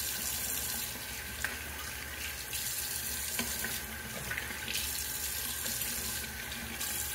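Bathroom sink tap running steadily into the basin. Its hiss brightens and dulls in stretches of a second or two, with a couple of faint clicks.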